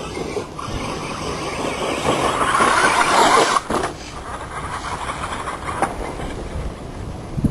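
Electric Traxxas Stampede RC truck driving: motor and tyre noise builds to its loudest about three seconds in, drops suddenly, then carries on lower with a couple of sharp knocks.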